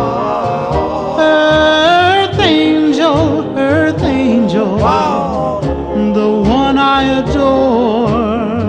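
A recorded oldies song: a lead singer holding and bending notes with vibrato over a backing band with a steady beat.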